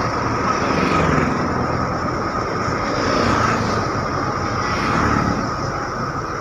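Steady engine and road noise heard from inside a moving bus.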